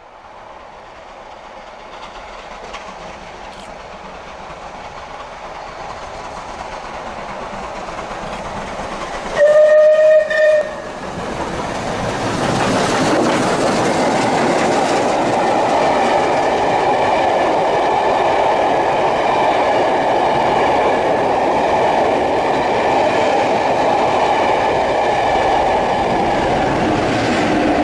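Steam locomotive and its passenger coaches approaching and running past at speed. The sound builds steadily. About ten seconds in the locomotive's steam whistle gives one long blast and a short one, and then comes the loud, steady rush and clickety-clack of the passing train.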